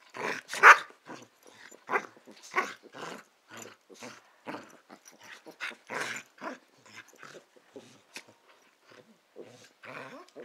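A Sheltie and a Yorkie-poo play-fighting, with a rapid, irregular run of short growls and snarls, loudest a little under a second in. It sounds fierce but is play, not a real fight.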